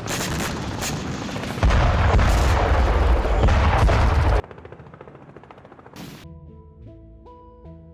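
Battlefield audio of rapid crackling gunfire. About a second and a half in, a much louder deep rumble takes over as the missile-struck attack helicopter burns and goes down. Both cut off suddenly about four seconds in, and near the end a short electronic jingle of stepped notes begins.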